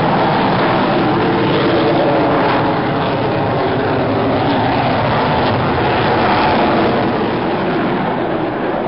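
Jet aircraft flying over during an air display, a loud steady engine noise that eases slightly near the end.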